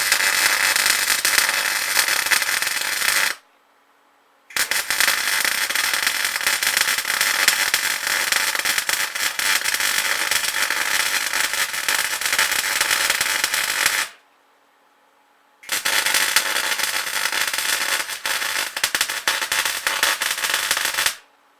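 MIG welder crackling steadily as weld beads are run on a cast iron part, in three runs: about three and a half seconds, a long run of about nine and a half seconds, then about five and a half seconds. A faint low hum fills the short pauses between runs.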